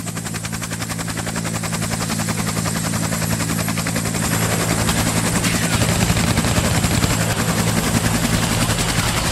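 Helicopter with a fast, even rotor chop over a steady low engine drone, growing louder for the first few seconds and then holding steady, as if approaching and then hovering.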